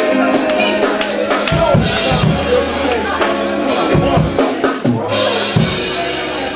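Live church music with a drum kit, bass and keyboard playing a slow worship groove, with voices singing or praying over it.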